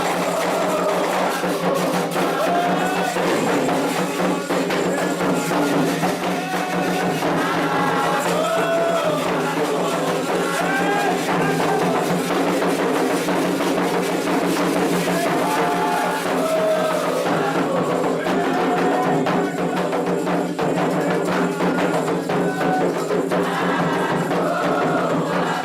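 Candomblé ritual music calling the orixás: atabaque hand drums and rattling or clacking percussion under sung melody lines, continuous and steady in level.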